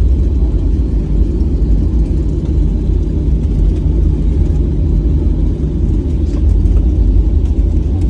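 Loud, steady low rumble of a Boeing 737-800 in flight heard from inside the cabin: airflow and engine noise, without let-up.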